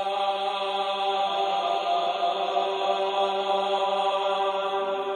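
Outro music in the style of sacred chant: one long held note, moving to a lower note near the end.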